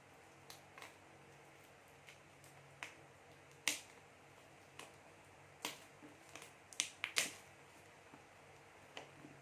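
Scattered sharp clicks and snaps at irregular spacing, from hands handling a smartphone's retail box and packaging during unboxing, with a cluster of louder clicks near the end.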